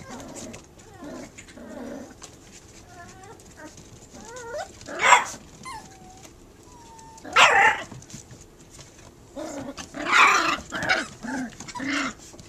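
Puppies barking at a cat in sharp, high yaps, with thin wavering whines in between. Single loud yaps come about five seconds in and again at seven and a half, then a quick run of them near the end.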